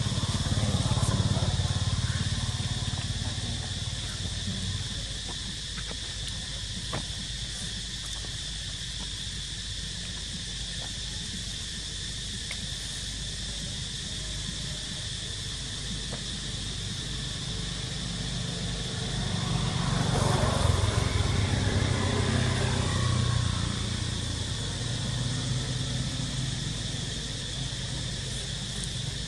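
Steady high-pitched insect drone, with the low hum of a motor vehicle engine that fades over the first few seconds and swells up and fades again about twenty seconds in as a vehicle passes.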